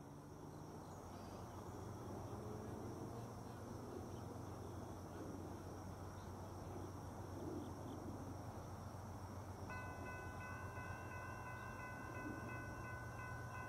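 Distant Norfolk Southern locomotive horn sounding a chord of several notes about ten seconds in, held with short breaks, over a faint low rumble.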